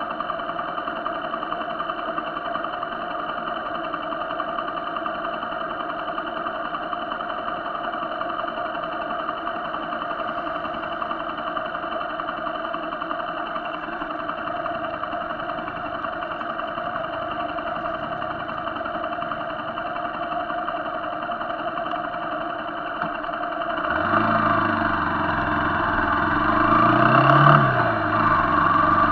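A motorcycle engine idling steadily while stopped in traffic, then about 24 seconds in it revs up and pulls away, louder, its pitch rising and falling.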